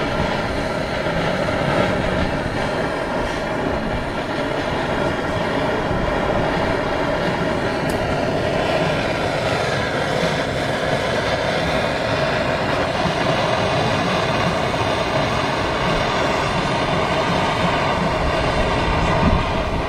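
Handheld gas torch on a blue fuel canister burning with a steady rushing noise, its flame heating a wire splice for soldering.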